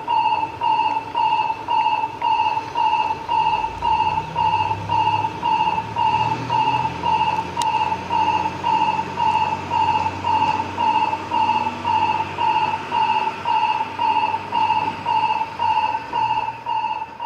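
Japanese railway station train-approach warning: an electronic tone beeping about twice a second, steady and unbroken. A low hum joins underneath about three and a half seconds in.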